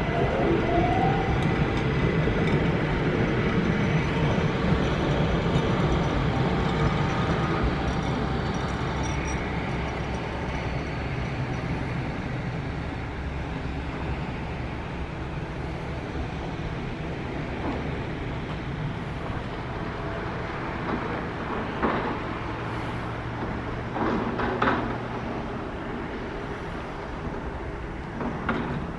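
Railway train running past, its rumble loudest at first and then slowly fading, with a few sharp knocks in the last several seconds.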